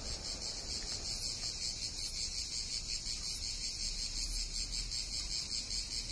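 Cicadas singing in chorus: a dense, shrill, high buzz that pulses about twice a second.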